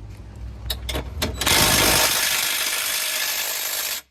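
A few sharp metallic clicks, then a 3/8-inch-drive impact wrench hammering on a suspension nut for about two and a half seconds before stopping abruptly; the nut is stubborn and not breaking loose.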